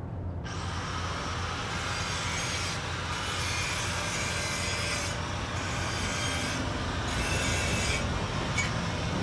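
Continuous rough scraping, rasping noise, like filing or sanding, starting about half a second in and pausing briefly a few times, over a steady low hum.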